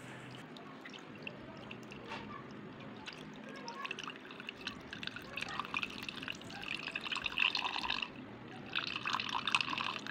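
Evaporated milk poured from a can in a thin stream into a stainless-steel bowl of milk and gelatin cubes, trickling and bubbling as it hits the surface. The stream grows louder over the second half, with a short break about eight seconds in.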